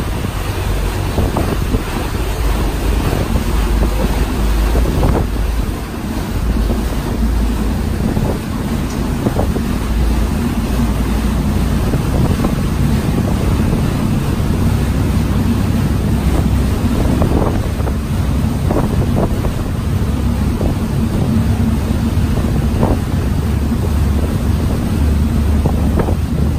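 Wind buffeting the microphone over the steady low drone of a ferry's engines, with water rushing and splashing in the boat's wake.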